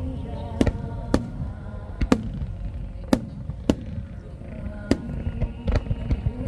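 Aerial fireworks shells going off: about nine sharp bangs at uneven spacing, over music playing steadily underneath.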